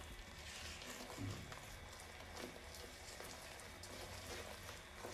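Butter, sugar and milk caramel bubbling in a pan on a low flame as it cooks down toward brown: a faint, steady crackle of tiny pops while it is stirred, with a soft low knock about a second in.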